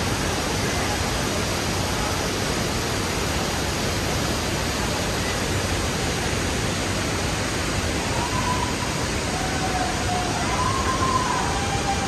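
Steady rush of a large waterfall falling into its plunge pool.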